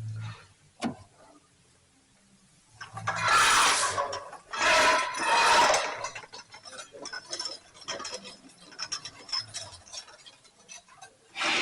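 Metal-on-metal clinking and clicking from hand tools working on the engine: a sharp click, two louder noisy spells of about a second each, then a run of small irregular ticks.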